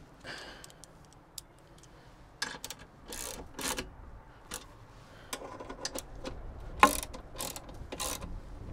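Metal clicks, knocks and scrapes from a steel swivel-seat plate being shifted and set down on the seat base, the loudest a sharp knock about seven seconds in. Wind rumbles on the microphone near the end.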